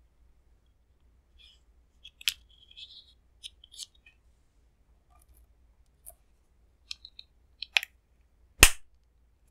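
Small plastic clicks and taps from handling lipstick and lip balm tubes and containers, irregular and spaced out, with a sharp click near the end.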